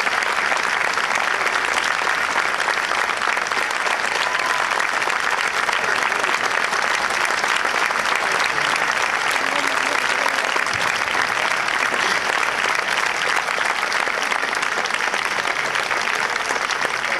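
Large audience applauding: dense clapping that holds at a steady level without a break.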